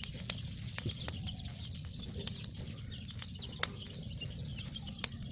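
Small fire of dry leaves and straw crackling, with a few sharp pops scattered through it, under a low steady rumble.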